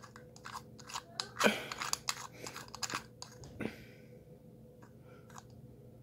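Dial of a combination padlock being turned by hand: a run of small, irregular clicks and rattles, busiest in the first four seconds and sparse after that.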